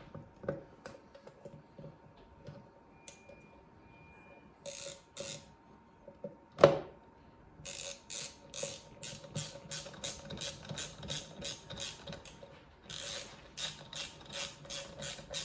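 Ratchet wrench with a 7 mm socket clicking in quick, even strokes, about three a second, as it tightens the self-locking nut on a robotic lawnmower's rear wheel. Before that come a few scattered clicks and one loud knock.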